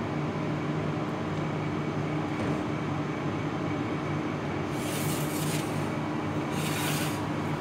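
Steady mechanical hum of commercial kitchen machinery, with two short hissing noises about five and seven seconds in.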